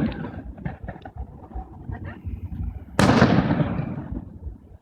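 Fireworks: one loud aerial shell burst about three seconds in, its boom dying away over a second or so, with a few smaller crackles and the fading tail of an earlier burst before it.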